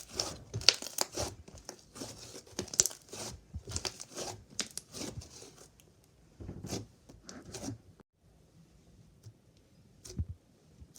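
Hands working slime: irregular sticky crackling, snapping and tearing sounds, dense for the first half, then thinning to occasional pops with a nearly quiet stretch near the end.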